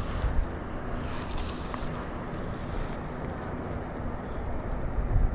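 Wind buffeting the camera microphone: a steady rush with a heavy low rumble, and a faint steady hum underneath through the first part.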